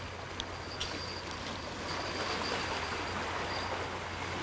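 Sea washing against shoreline rocks: a steady rushing hiss under a low constant hum, with a couple of faint clicks about half a second and a second in.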